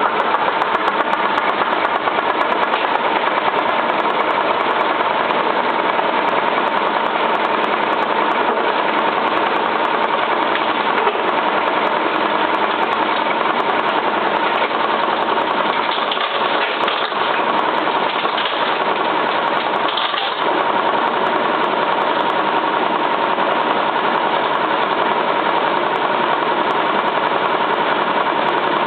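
Cylinda 12002 washing machine drum on its final spin: a loud, steady running sound with a constant whine and many sharp clicks and knocks throughout. The noise sounds like something stuck inside the drum, though nothing was found in the inspection pocket.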